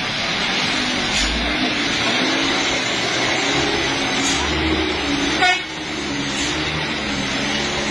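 Loaded light cargo truck driving by on a wet road: steady engine and tyre noise, with a short loud rattle about five and a half seconds in.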